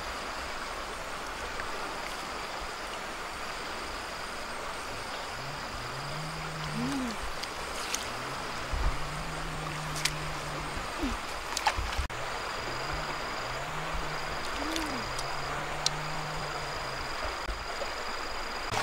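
Steady rush of a fast-flowing river. Through the middle come several low drawn-out tones, each a second or so long, and a few faint clicks.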